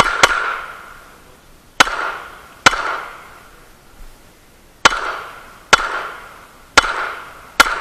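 Semi-automatic pistol fired eight times: a quick pair at the start, then single shots roughly a second apart. Each sharp report trails off over about a second.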